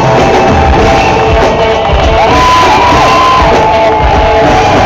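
Loud rock music over an arena sound system, with a large crowd cheering and shouting.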